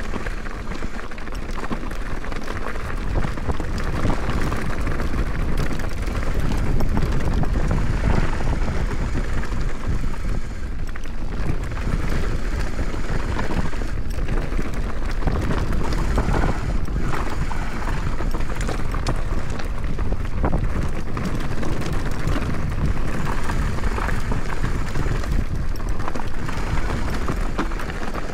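Wind buffeting the action camera's microphone over the steady rumble and rattle of a mountain bike descending a rough trail. Many short knocks and clicks come from the tyres and bike hitting rocks and roots.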